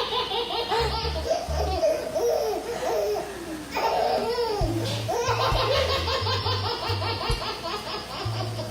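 A baby laughing hard in repeated bursts, with background music and its bass line underneath.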